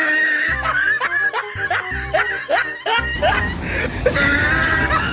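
Background music with a cartoonish snickering laugh: a string of short rising 'heh' sounds, roughly three a second.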